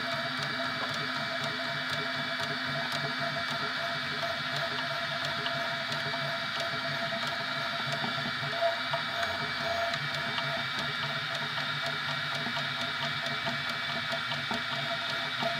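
A 3D printer at work: a steady mechanical whine of its motors, several tones at once wavering as it moves, with faint scattered ticks.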